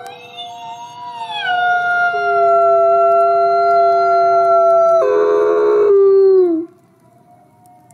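Gray wolf howling: one long howl that swoops up at the start, drops to a lower pitch about a second and a half in and holds it, turns rough for about a second near the five-second mark, then slides down and stops about six and a half seconds in.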